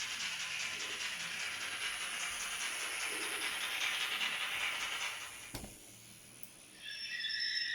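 Steam-locomotive sound from an ESU LokSound V5 decoder in a model BR 18, played through the model's small speaker: a steady hiss with a fast chuffing rhythm, then a sharp click and a drop in level. Near the end a high, several-toned steam whistle sounds in short blasts.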